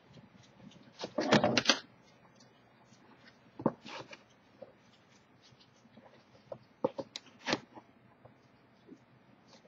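Scuffling and tapping as a cat paws and bites at a hand and a pen on a box. There is a loud rustling scuffle about a second in, then scattered sharp clicks and taps.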